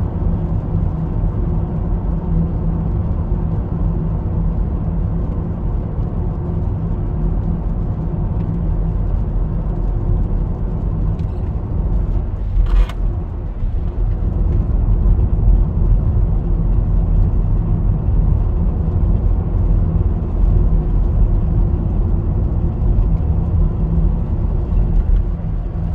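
Steady cabin noise of a car driving on a wet road: a low engine and tyre rumble with a constant hum. There is a single short click about halfway through.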